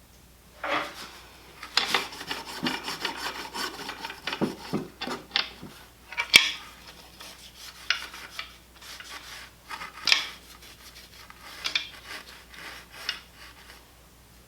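Irregular scrubbing and rubbing strokes on outboard motor parts being cleaned, with a sharp knock about six seconds in.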